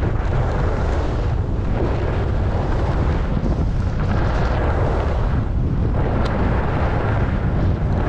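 Wind buffeting the microphone of a camera on a skier moving fast downhill, over the hiss and scrape of skis on groomed, packed snow that swells and eases as the skier turns.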